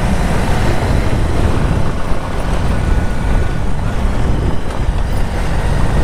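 Bajaj Pulsar motorcycle riding over a rough dirt and gravel track: the engine and the ride make a steady, loud low rumble throughout.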